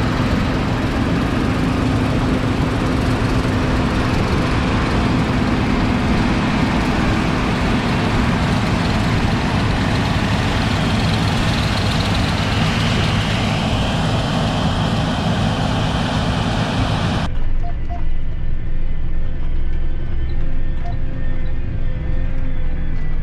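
Combine harvester running steadily in soybeans: a loud, even mix of engine and machinery noise with a low hum. About 17 seconds in, the sound changes abruptly and becomes duller.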